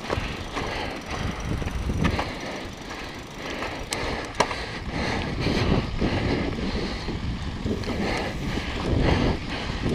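Downhill mountain bike rolling fast over loose gravel and rock: tyres crunching, the bike rattling over bumps, and wind buffeting the camera microphone. A couple of sharp knocks about four seconds in.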